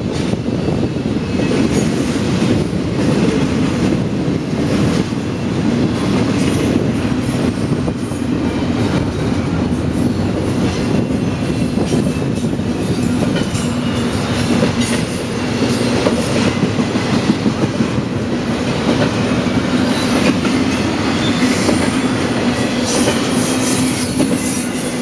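Double-stack intermodal freight cars rolling past, a steady rumble with wheels clicking over rail joints and thin squeals at times. The sound starts to fall away near the end as the last car goes by.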